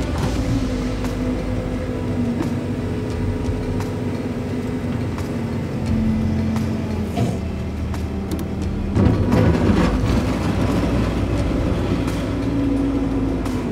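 JLG telehandler's diesel engine running under load as it works a bucket through a pile of decomposed granite, its pitch shifting as the operator moves the boom. About nine seconds in there is a louder rush of noise as the bucket scrapes and pours the dirt.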